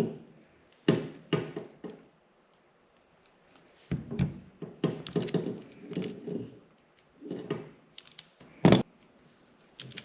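Hands working a plastic wiring-harness connector: scattered sharp clicks and short bursts of handling noise as terminals and seals are pushed in, with one louder click near the end.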